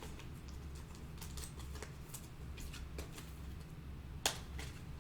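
Faint, scattered light clicks and taps of trading cards and packs being handled, with one sharper click about four seconds in.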